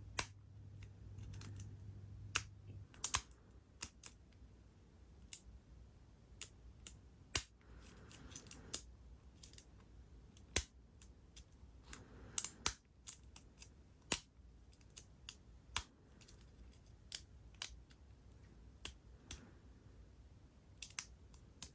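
Small, sharp metallic clicks and taps at irregular intervals, from a lock pick probing and lifting the pins inside a Yale padlock's cylinder under tension: a pick working to set the remaining pins.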